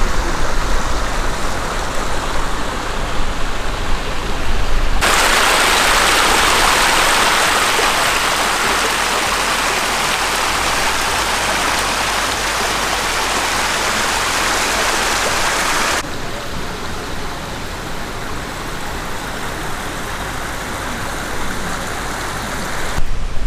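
Creek water running over rocks, a steady rushing noise that jumps louder about five seconds in and drops back suddenly about two-thirds of the way through.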